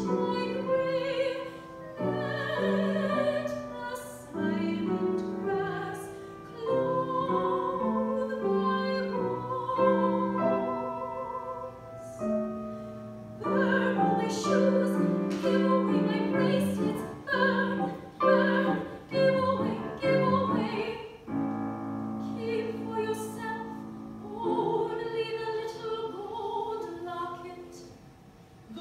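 Operatic singing with piano accompaniment, the voice wavering with vibrato on held notes, the music growing softer near the end.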